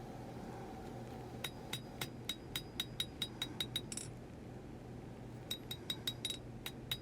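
Blacksmith's hand hammer tapping hot W-2 steel on an anvil, shaping a knife handle: quick light blows about four a second, each with a bright ring, in two runs with a pause of about a second and a half between.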